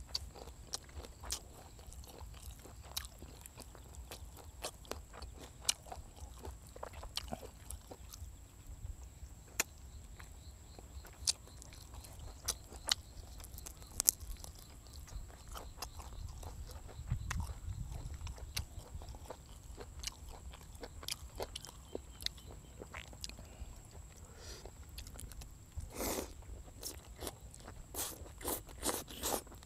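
Close-up eating sounds: wet chewing and smacking on braised pork leg, with many sharp clicks, then a run of louder slurps near the end as egg noodles are sucked in from chopsticks.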